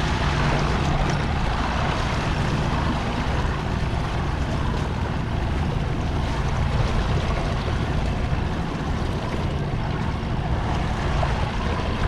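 Boat motor running steadily at a low, even pitch, with wind and water noise over it.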